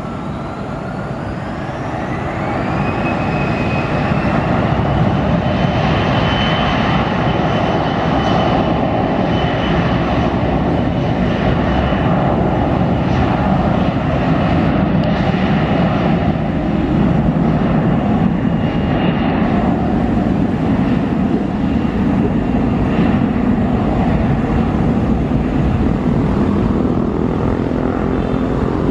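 Bombardier CRJ1000 airliner's two rear-mounted turbofans spooling up for takeoff: a whine rising in pitch over the first few seconds as the jet noise grows louder. A steady high whine then holds over the loud engine rumble during the takeoff roll and fades out about two-thirds of the way through, leaving the rumble.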